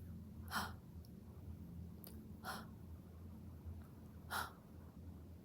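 A woman's voice making three breathy, unvoiced 'h' sounds about two seconds apart: the /h/ consonant said on its own as a pronunciation drill. A faint steady low hum lies underneath.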